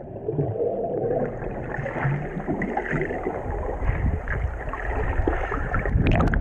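Muffled underwater rush and bubbling of water churned up by swimmers plunging in from a cliff jump, picked up by a camera held underwater. Sharper splashing cuts in near the end.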